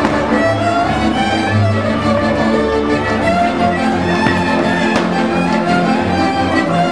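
Transylvanian village string band playing a dance tune: several fiddles bowing the melody together over a rhythmic contra and double bass accompaniment, the bass notes pulsing steadily underneath.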